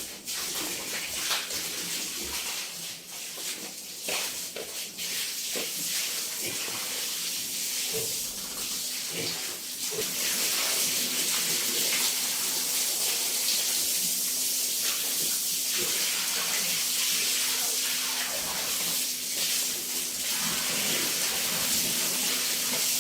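Water running or spraying in a steady rushing hiss, louder from about ten seconds in, with scattered knocks.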